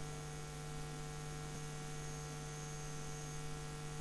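Steady electrical hum with a faint hiss behind it, picked up by the recording setup.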